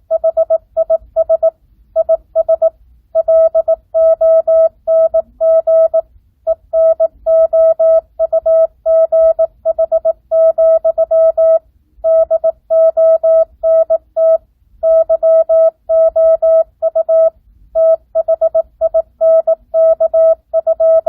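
Morse code (CW) practice tone sent at 18 words per minute, non-Farnsworth: a single steady-pitched beep keyed on and off in short and long elements, with brief gaps between letters and longer ones between words.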